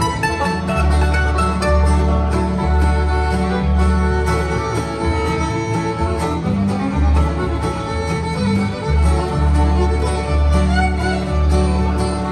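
Bluegrass band playing an instrumental break between sung verses, the fiddle taking the lead over mandolin, acoustic guitar, banjo and upright bass.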